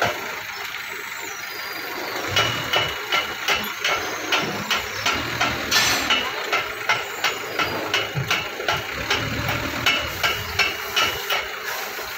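Forklift engine idling, with a run of sharp metallic knocks, about two a second, starting about two seconds in.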